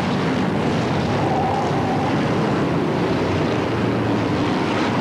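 Engines of a field of BriSCA Formula One stock cars racing round the oval, a steady blended engine noise.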